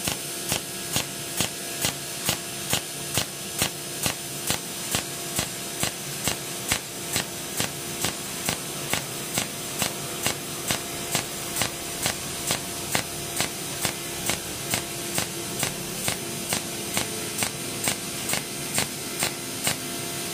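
Cold welding machine set to mode 2, its pulsed arc snapping evenly about two and a half times a second as it lays overlapping spot welds along a seam in galvanized sheet steel, over a steady hiss.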